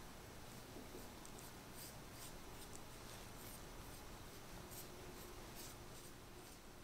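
Faint soft swishes of a pastry brush stroking egg wash onto raw pie dough, about two to three strokes a second.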